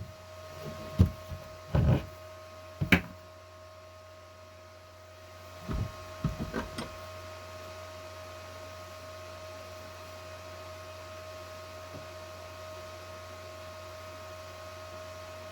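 A few short knocks and clatters, in two clusters about a second in and about six seconds in, over a steady machine hum that runs throughout.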